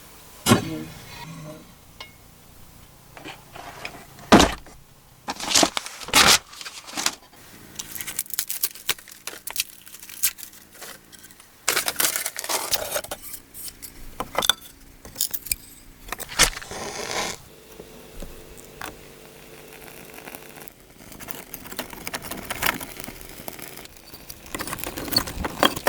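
Irregular clanks, knocks and scrapes of metal and wood being handled at a Russian wood-burning stove.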